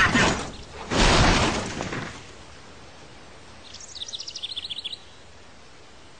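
A car crashing as it tumbles down a dusty hillside: a loud crash about a second in that fades over the next second. Near four seconds in, a bird chirps in a quick run of high notes.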